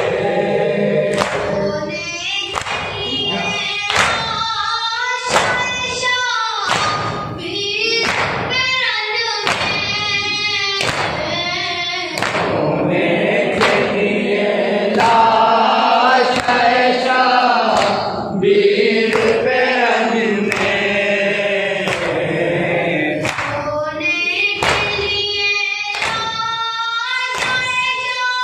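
An Urdu noha, a Shia mourning lament, recited by a young voice into a microphone, with a group of voices joining in chorus. A steady beat of hands striking chests (matam) runs under it at about three strokes every two seconds. The strokes stop for several seconds in the middle while the voices hold long notes, then start again.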